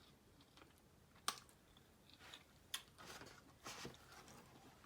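Quiet chewing of a chicken lettuce wrap close to the microphone, with two sharp mouth clicks, one about a second in and one near three seconds, followed by soft, wet chewing.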